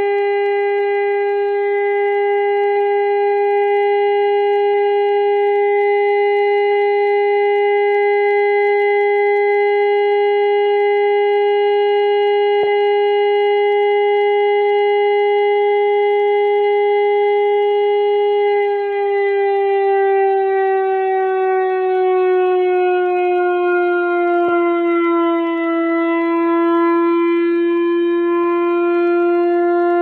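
Midland 74-105 weather radio's alert siren, set off with its Test button: a steady electronic tone that slides gradually lower in pitch about two-thirds of the way through, then holds at the lower pitch.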